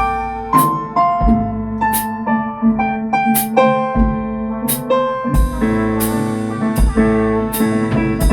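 Multitrack instrumental music: keyboard playing the melody and chords over a drum kit beating a steady pulse, about three hits every two seconds. Around five seconds in, fuller chords come in and the texture thickens.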